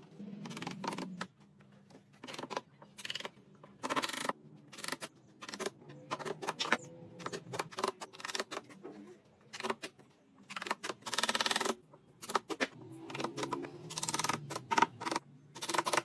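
Irregular knocks, taps and short scrapes of wood and hand tools being worked and handled, some strokes lasting up to about a second.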